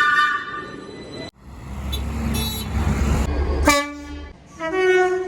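Train horns in a run of short clips. One horn note fades out in the first second. After a low engine rumble, a two-tone horn sounds a lower note and then a higher one, each held for about a second.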